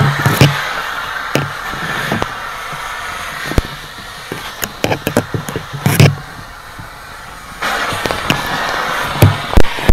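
Fully involved structure fire crackling, with sharp irregular pops and cracks over a steady hiss; the hiss grows louder about three-quarters of the way through.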